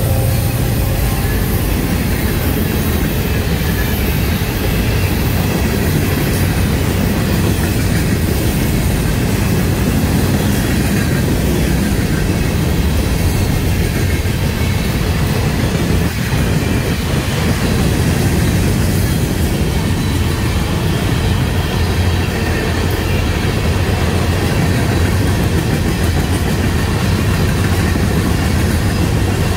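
Freight train of hopper cars rolling past close by: a steady, loud noise of steel wheels on the rails, heaviest in the low end.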